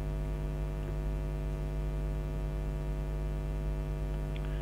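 Steady mains hum, a low electrical buzz with many overtones, with a faint click or two near the end.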